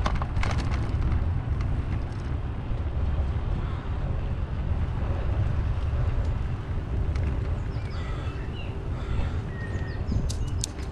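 Wind buffeting the microphone of a camera on a moving bicycle, a steady low rumble, with a few faint high chirps late on and a run of sharp clicks near the end.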